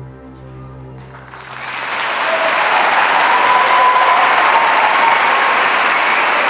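Freestyle dressage music ends and an audience breaks into applause about a second in, swelling to loud, sustained clapping.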